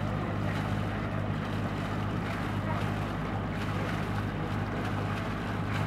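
A sailing yacht's inboard engine running steadily at idle, a low even hum, with its wet exhaust spurting cooling water out beside the stern.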